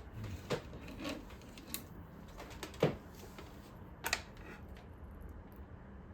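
A handful of separate sharp clicks and light knocks from small parts of a disassembled Roomba being handled, the loudest about three seconds in and a quick double click just after four seconds.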